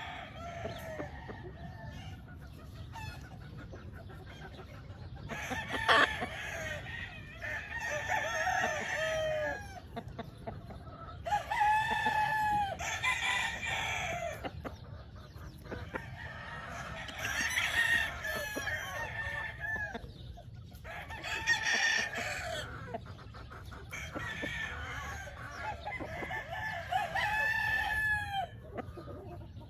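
Several gamefowl roosters crowing again and again, their crows overlapping and following one another every few seconds.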